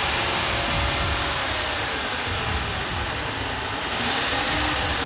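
A machine running with a loud, steady rushing noise that starts and stops abruptly.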